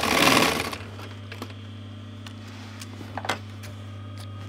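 Industrial sewing machine's motor humming steadily at rest, with a short rustle of heavy fabric being handled at the start and a couple of faint clicks later on.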